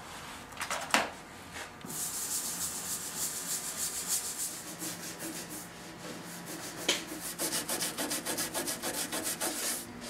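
Brisk hand scrubbing on the surface of an antique steamer trunk: quick back-and-forth rubbing strokes, several a second, that pick up about two seconds in, with a light knock about seven seconds in.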